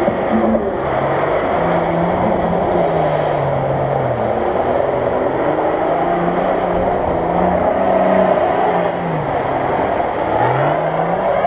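Modified off-road 4x4's engine revving hard as it pushes through deep mud. The engine note drops about four seconds in and climbs again near the end, over a steady hiss of spraying mud.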